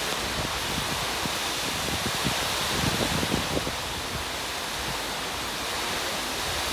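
Heavy rain pouring down steadily in a storm, with gusts of wind rumbling on the microphone, strongest about two to three and a half seconds in.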